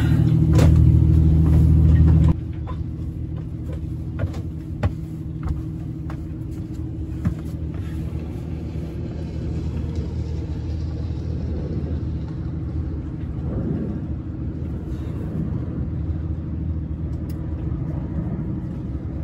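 A sailboat's newly installed diesel engine turning over on its starter: a loud steady drone that stops abruptly about two seconds in. A lower steady rumble with a few faint clicks follows.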